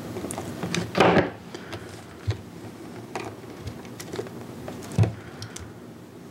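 Handling noises of pliers and a sealed lead-acid battery being picked up and its spade connector worked onto the terminal: a loud clattering rustle about a second in, then a few scattered knocks and clicks, the strongest a knock about five seconds in.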